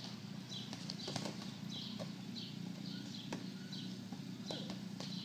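Backyard trampoline bouncing: the springs squeak over and over while a few sharp knocks come from the mat and frame, the loudest about a second in.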